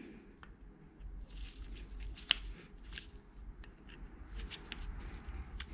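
Screwdriver tightening the slotted screws of an electric motor's bearing cover cap: faint scraping and scattered small metallic clicks, with a sharper click a little over two seconds in.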